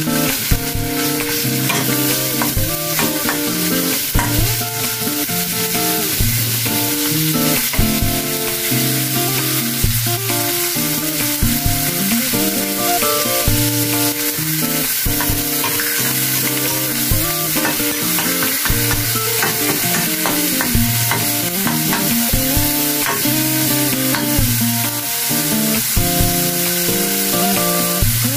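Minced pork sizzling in a wok while a metal spatula stirs and scrapes it, with a little water poured in about halfway through. Background music plays throughout.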